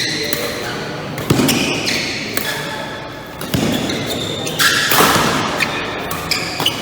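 Badminton singles rally in a large echoing hall: sharp racket strikes on the shuttlecock a second or two apart, with short high squeaks of court shoes between them.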